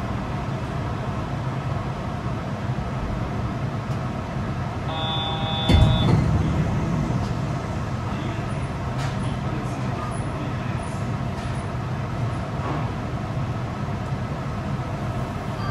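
Yurikamome rubber-tyred automated train, a steady hum and rumble. About five seconds in, a short electronic beep lasts about a second, followed by a sharp thump, the loudest sound.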